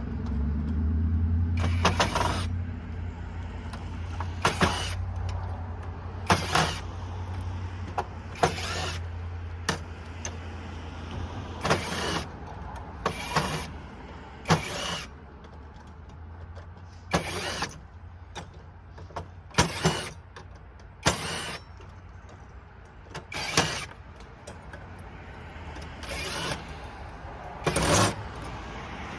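Cordless power drill driving screws out of light sockets in short bursts, about fifteen of them one to two seconds apart, over a steady low hum.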